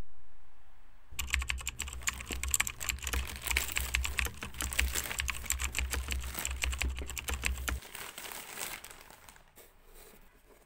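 Rapid typing on a computer keyboard: a dense run of quick key clicks starting about a second in and thinning out near the end, over a low steady hum that stops shortly before the typing does.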